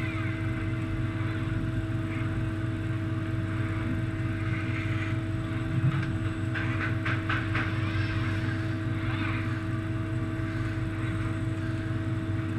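Kawasaki RS010N industrial robot arm at work beside a machine tool: a steady machine hum with the rising and falling whine of the arm's servo motors as it moves, and a quick run of clicks about six to seven seconds in.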